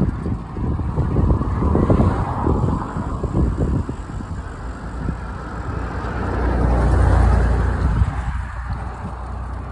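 Gusty wind rumbling on the microphone, with car traffic on the road.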